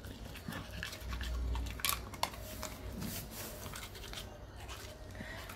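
A toothbrush scrubbing a Goldendoodle's teeth: faint scratchy bristle scraping with scattered clicks, and a dull low rumble about a second in.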